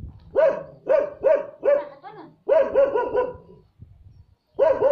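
A dog barking in quick runs of short barks, about three a second, pausing for about a second before starting again near the end.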